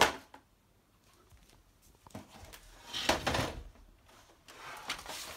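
A sharp knock at the start, then bouts of scraping and rustling about two, three and five seconds in, the one around three seconds the loudest: handling noise.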